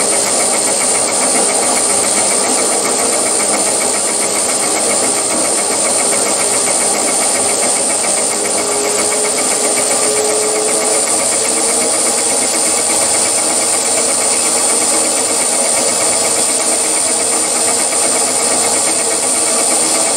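Milling machine fly-cutting the face of a metal block under power feed: the spindle and cutter run steadily with a fast, even ticking. This is a facing pass to flatten the block.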